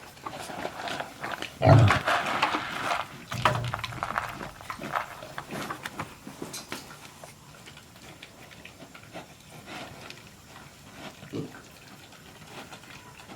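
Philippine native pigs making noise, with the loudest burst just under two seconds in. The sound is busy for the first few seconds, then settles into quieter, scattered sounds.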